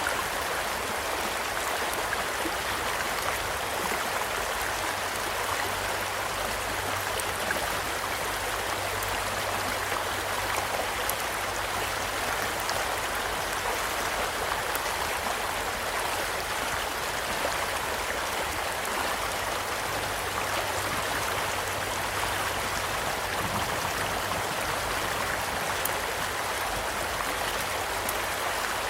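Small stream flowing steadily, with a few faint, scattered crackles and pops from a wood campfire.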